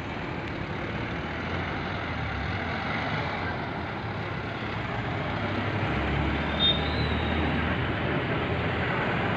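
Truck engine idling, a steady low hum that grows slowly louder, with a brief high squeak about two-thirds of the way through.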